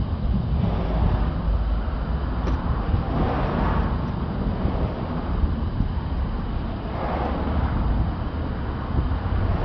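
Wind buffeting the microphone as a steady low rumble, with a broader hiss swelling twice, about three seconds in and again around seven seconds, and a light click about two and a half seconds in.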